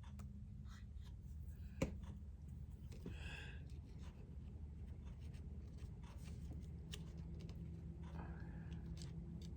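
Paper embellishments being handled and positioned on a scrapbook page: faint rustling and scraping, with a small sharp tap about two seconds in, over a low steady hum.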